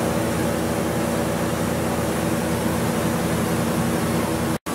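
Ebbco metalworking coolant filtration unit running: a steady machine hum with several level tones over an even hiss. It cuts out for an instant near the end.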